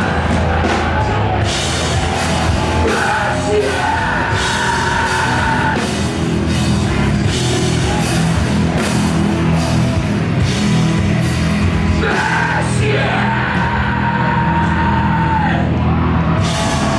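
Metalcore band playing live and loud: distorted guitars, heavy drums and crashing cymbals, with shouted vocals.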